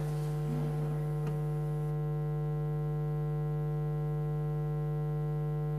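Steady electrical hum, a low drone with a stack of even overtones, with one faint click a little over a second in.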